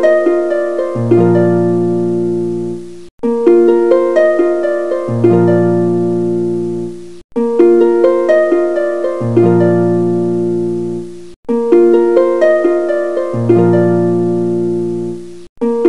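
Background music: a short, gentle phrase of plucked-string notes that loops about every four seconds, with a brief gap between repeats.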